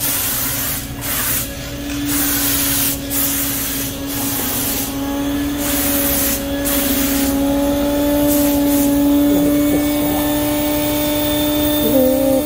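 Suction-feed spray gun hissing in repeated bursts as the trigger is pulled, laying light mist coats of metal flake, with short breaks between passes. The spraying stops about nine seconds in, leaving a steady hum underneath.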